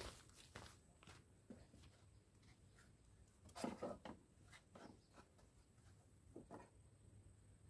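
Near silence, with a few faint knocks and rustles; the loudest is a short cluster about three and a half seconds in.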